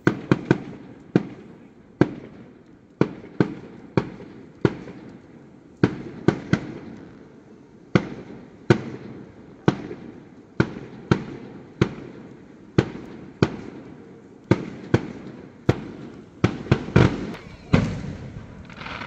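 Fireworks display: aerial shells bursting one after another, about one or two sharp bangs a second, each fading out with a rolling echo. The bangs come thicker, with a low rumble, near the end.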